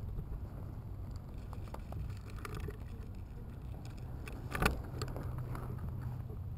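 Quiet movement through dry juniper brush: faint crackles of twigs and footsteps over a low rumble of wind and handling noise on the camera microphone, with one sharp crack about four and a half seconds in.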